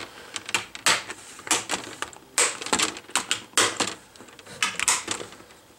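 Plastic screen bezel of a Toshiba Satellite P855 laptop being pried off by fingertips, its retaining clips snapping loose in a run of irregular sharp clicks.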